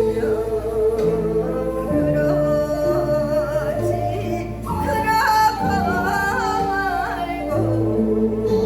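Korean folk song (minyo) sung in a wavering, heavily ornamented vocal line over instrumental accompaniment with sustained bass notes; the voice climbs higher about five seconds in.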